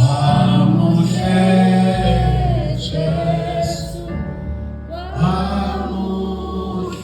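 Gospel singing with music: voices holding and bending sung notes in phrases over a steady low bass.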